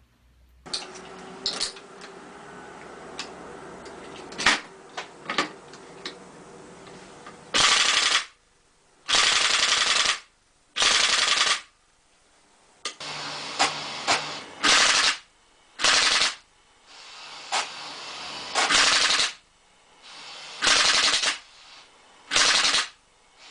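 Airsoft rifle firing: a few single shots at first, then a string of short full-auto bursts, each about half a second to a second of rapid clicking, with brief pauses between.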